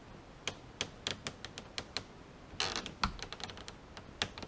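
A small flathead screwdriver and the sun visor arm clicking against the plastic bezel of a C5 Corvette's sun visor mount as the arm is levered round to free it. It is a series of light, irregular clicks, with a brief scraping rustle a little past halfway.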